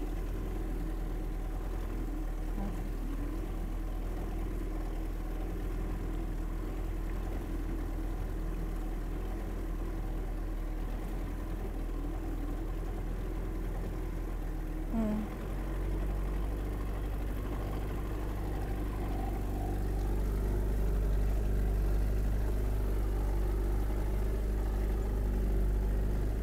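A small boat's motor running steadily at low speed. Its note shifts about halfway through, and it grows slightly louder toward the end.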